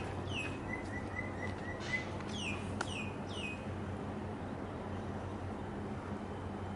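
Small birds chirping: a quick run of short, even notes, then several quick downward-sweeping chirps in the first few seconds. A steady low hum runs underneath.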